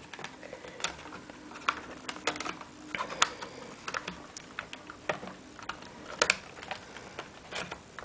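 Plastic access cover being fitted back onto the plastic underside of a laptop: light, irregular clicks and taps as it is pressed and shifted into place, with a few sharper clicks among them.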